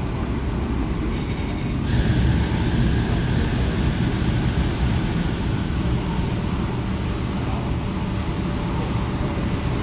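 Interior running noise of an MTR K-Train electric multiple unit: a steady rumble of wheels on rail and traction equipment, heard through the car by the door. The noise grows louder and brighter about two seconds in.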